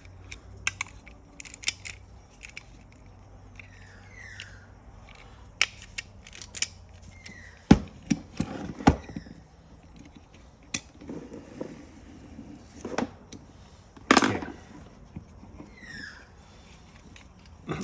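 Irregular clicks and clacks of a Toyota Hilux seatbelt retractor's parts being handled and worked, with a few sharper knocks about halfway through and again a little later.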